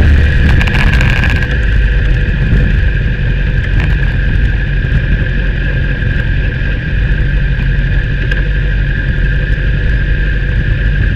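Kawasaki Ninja sport motorcycle's engine running steadily at low speed, a low rumble with a steady whine above it, heard from a camera mounted on the bike's fairing.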